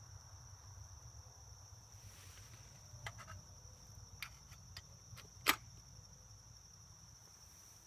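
Insects at a campsite trilling one steady high-pitched note, with a few light clicks from about three seconds in and one sharper click about five and a half seconds in.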